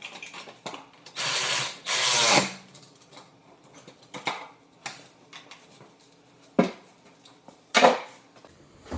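A tool working bolts, most likely the seat's mounting bolts: two short rattling bursts a little over a second in, followed by a few scattered sharp knocks and clanks.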